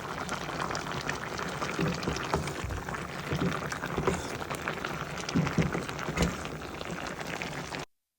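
Liquid bubbling steadily with many small irregular crackles, which cuts off abruptly near the end.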